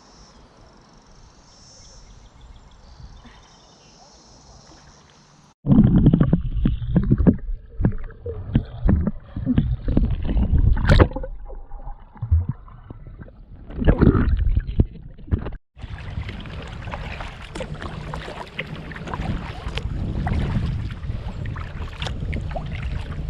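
Kayak paddling on a river: paddle strokes and water against the hull, with irregular knocks. Faint for the first few seconds, then much louder and closer from about five and a half seconds in.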